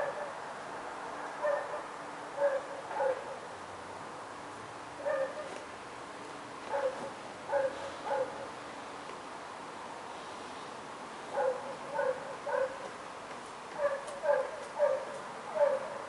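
A dog barking over and over, in short runs of one to three barks with pauses between.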